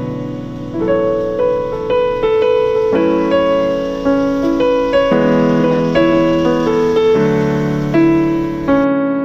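Background music: a slow piano piece, notes and chords struck and left to ring, changing about once a second.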